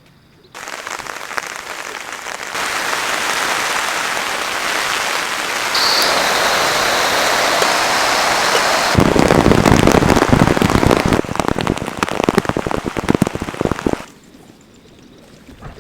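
Rain falling, in several sections that change abruptly. About nine seconds in it becomes heavy, close rain striking a surface, with many separate drop hits, then cuts off abruptly near the end.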